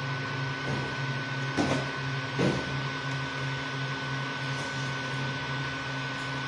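Creality Ender 3 V2 3D printer running mid-print: a steady whir from its cooling fans with a constant thin whine, over a pulsing hum from the moving stepper motors. Two brief knocks come about one and a half and two and a half seconds in.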